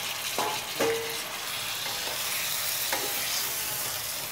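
Raw chicken pieces sizzling in hot, oily masala in a kadhai, with a steady hiss. A few short knocks of the spatula against the pan come as the pieces are stirred.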